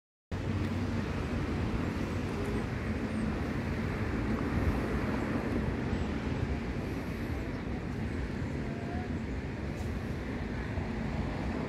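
Steady low rumbling background noise that starts abruptly just after the beginning and keeps an even level throughout.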